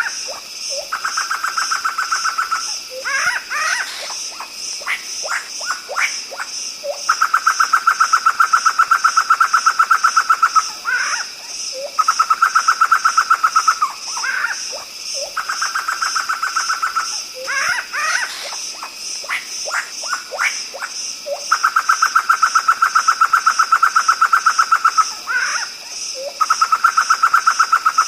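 A poksay hitam (black laughingthrush) calling in short sweeping and rising notes. Several times these alternate with a rapid, even pulsing buzz that starts and stops abruptly.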